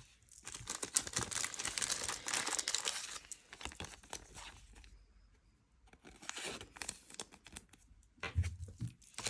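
A Pokémon card booster pack being torn open, its foil wrapper crinkling and crackling for about three seconds, then more briefly again a few seconds later.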